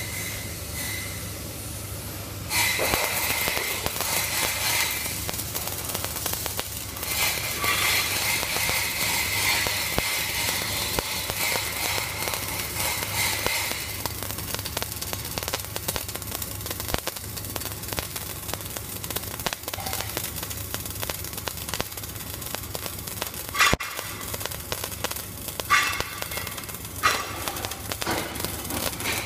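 Flux-cored arc welding: the arc strikes about two and a half seconds in and runs as a steady crackling hiss. A few sharper pops come near the end, over a steady low hum.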